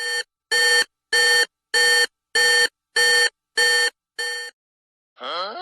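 Electronic telephone-style ringing sound effect: eight short identical ringing tones, a little under two a second, the last one quieter. Near the end comes a different short sound with a sliding pitch.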